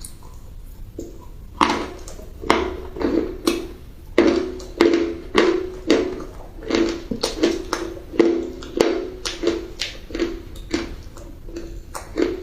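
Close-miked crunching as a crunchy food is chewed, sharp crunches coming about twice a second after a quieter first second and a half.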